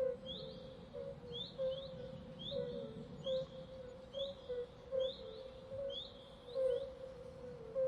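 A short chirping call, rising in pitch, repeated about once a second, sometimes in quick pairs, over a low steady rumble, as in an eerie night ambience.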